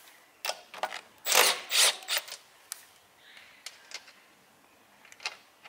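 Milwaukee M12 Fuel cordless driver with a 19 mm socket spinning the rear axle castle nut loose in two short bursts about a second in, after a couple of clicks of the socket going onto the nut. Light metal clicks follow as the loosened nut is handled.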